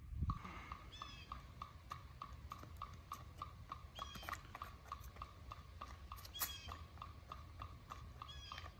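Faint metronome clicking at a steady, fast marching tempo, a little under three clicks a second, with a few short bird chirps over it.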